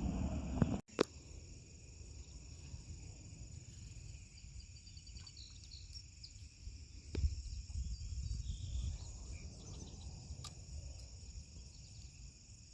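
Steady high-pitched insect chorus over a low outdoor rumble. A louder rumble in the first second cuts off abruptly.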